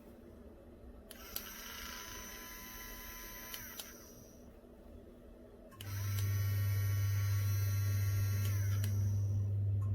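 A handheld battery milk frother's small motor whirring in two runs. The first starts about a second in and winds down after about three seconds. The second, louder run starts about six seconds in with a strong low hum and keeps going.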